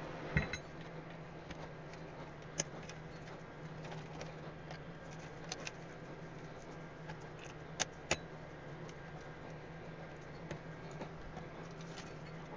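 Scattered light clicks and taps of a circuit board, connectors and wires being handled and set back into a bench power supply's metal chassis, with two sharp clicks close together about eight seconds in, over a steady low hum.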